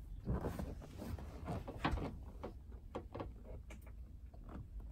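Scattered light clicks and knocks from hands working at the open live well hatch of a bass boat, with a faint low rumble underneath.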